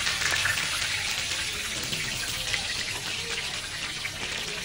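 Hilsa fish pieces sizzling steadily as they fry in shallow oil on a flat griddle.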